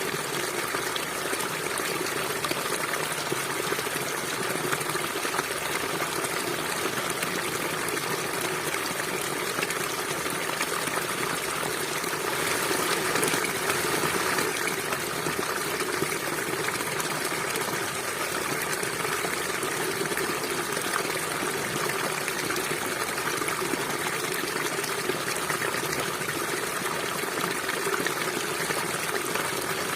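River water flowing in a steady rushing and gurgling stream.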